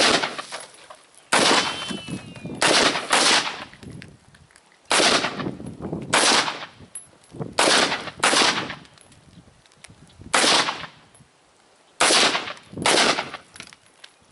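AR-15 rifle firing single semi-automatic shots, about eleven in all, spaced irregularly half a second to two seconds apart, each shot followed by an echoing tail.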